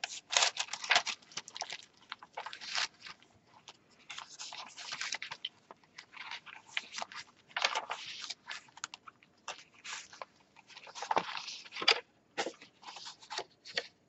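Paper and heavy card pages of a handmade file-folder junk journal rustling and crinkling as they are turned and handled, in an irregular run of short rustles and taps.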